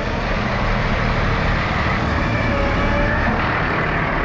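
Steady street traffic noise with a truck engine running: a utility bucket truck working with its boom raised.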